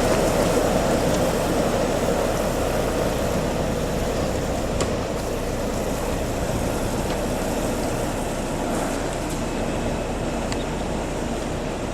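Heavy vehicle engine running steadily, slowly growing quieter as it moves off.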